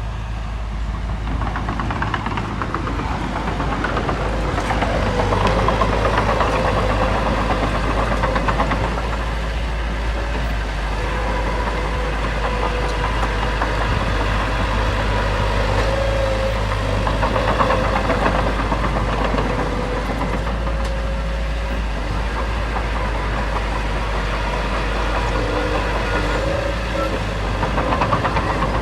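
Diesel engine of heavy earthmoving machinery running under varying load, swelling and easing several times, with a thin whine coming and going.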